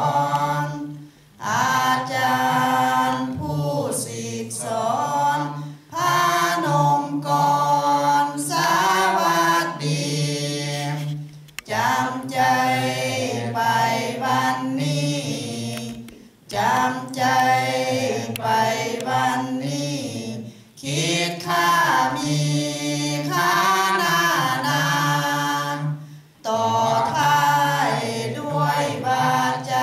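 Buddhist chanting in Pali by a group of voices, on a steady reciting pitch, in phrases of several seconds each broken by short pauses for breath.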